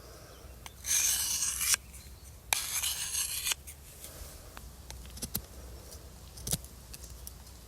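Knife blade drawn across a diamond sharpening plate in two strokes of about a second each, a hissing scrape, followed by a few light clicks.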